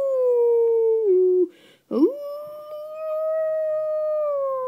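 Two long howls. The first holds steady, drops in pitch and breaks off about a second and a half in. After a short breath, the second rises sharply, holds, and slowly sinks in pitch toward the end.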